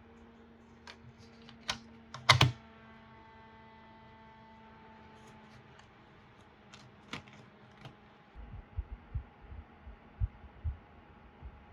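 Scattered sharp clicks and taps of something being handled, with a loud double clack about two and a half seconds in that leaves a few seconds of ringing tones. A faint steady hum runs underneath, and a run of soft low thumps follows near the end.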